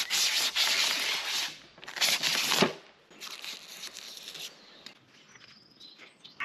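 Clear protective plastic film being peeled off a pool robot's glossy plastic lid in three long pulls, the first lasting about a second and a half and the next two shorter. After that only faint rustling is left.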